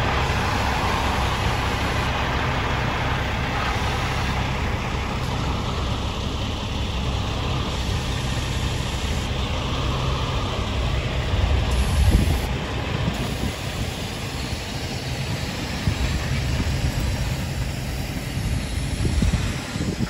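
Diesel engine of a Volvo car-carrier semi truck idling steadily, a low rumble that swells briefly about twelve seconds in.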